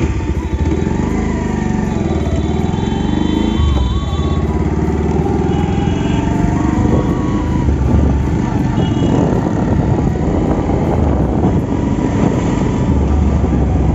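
Bajaj Pulsar 125's single-cylinder engine running as the motorcycle is ridden, its low note swelling and easing a few times, mixed with road and wind noise.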